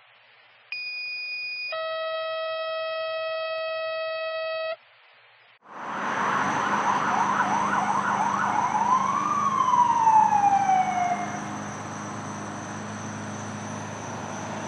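A steady electronic tone for about four seconds, a short high beep and then a fuller held tone, cuts off. After a short pause a fire engine's siren comes in over road noise: a fast yelp for a few seconds, then a slow falling wail that dies away, with a steady low engine drone underneath.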